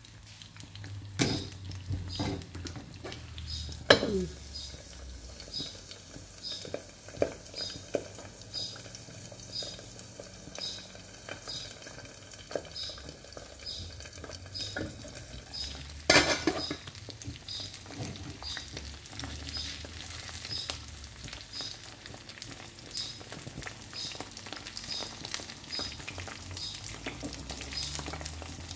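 Eggs frying and sizzling in a pan on a gas stove, with a few sharp metallic knocks and clatters from the pan, its metal lid and a spatula, the loudest about four and sixteen seconds in.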